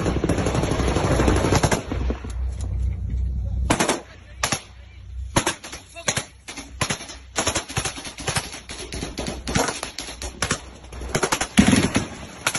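Shipboard machine-gun fire at night against attacking sea drones. For about the first four seconds there is a dense stretch of noise over a low rumble. After that come many sharp shots in short, irregular bursts, with a loud cluster near the end.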